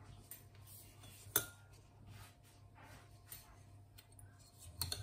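Quiet kitchen room tone with a steady low hum, broken by one sharp tick about a second and a half in and a smaller knock near the end.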